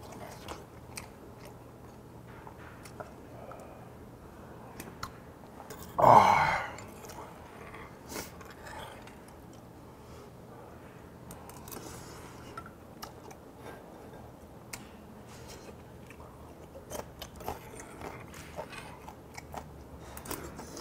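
A man eating nurungji sungnyung (scorched-rice water) from a stone pot with a metal spoon: quiet chewing and light clicks of the spoon against the pot. About six seconds in comes one short, loud voiced sound from the eater.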